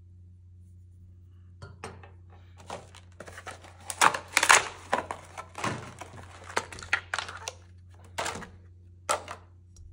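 Packaging being handled during an unboxing: irregular bursts of crinkling and rustling, with a few sharper clatters, starting about a second and a half in, over a steady low hum.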